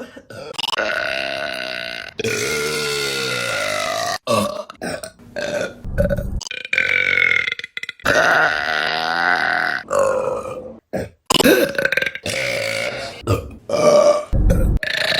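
Women burping, one clip after another: a rapid string of loud burps, a few drawn out for about two seconds with the pitch sliding down and back up, the rest short and abrupt.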